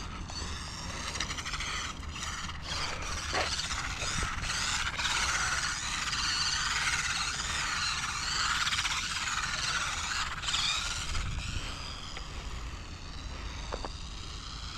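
Losi Micro B RC buggy's small brushed electric motor and gear drive whining. The pitch rises and falls as the throttle is worked, with a few short clicks.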